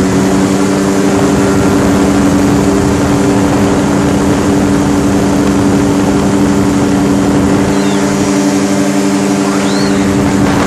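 Powered parachute's engine and propeller running at a steady speed: a loud, constant drone.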